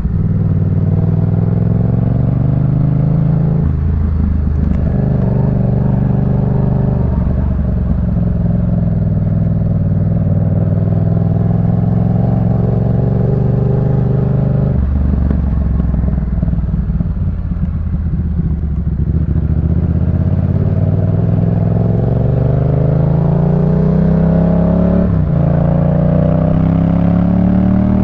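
Yamaha MT-07's 689 cc parallel-twin engine running through a Jeskap K4 full aftermarket exhaust while riding, with the engine note rising and falling through several gear changes. In the second half the pitch climbs steadily for several seconds under acceleration, drops briefly at a shift about 25 seconds in, then keeps climbing.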